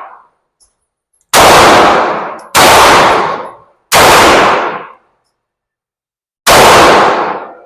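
Four loud handgun shots with echoing tails off the walls of an indoor range. The first three come about 1.3 seconds apart, and the fourth after a longer pause. The tail of an earlier shot is fading out at the start.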